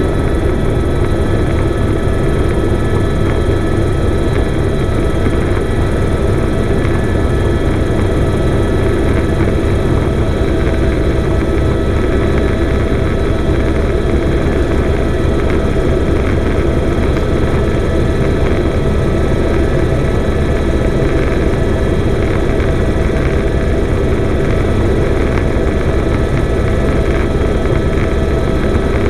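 Helicopter in flight, heard from just outside the cabin: a loud, steady rotor and engine din, with a few steady high tones over it.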